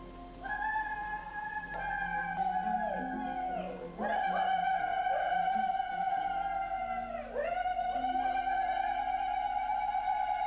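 Soundtrack music: a high melodic line of long, wavering held notes that swoop down between phrases, over lower sustained tones.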